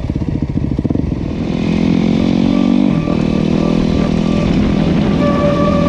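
Motorcycle engine running at low revs, then rising in pitch from about a second and a half in, dropping sharply at around three seconds, and running on steadily.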